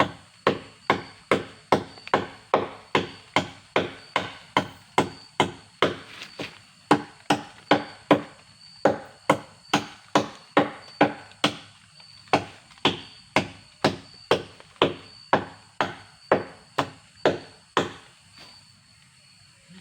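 Wood being chopped with steady, evenly spaced blows, about two a second, stopping about two seconds before the end.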